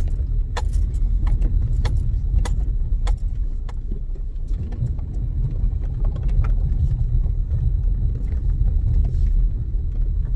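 Car driven slowly, heard from inside the cabin: a steady low rumble, with scattered light clicks and rattles over the first few seconds.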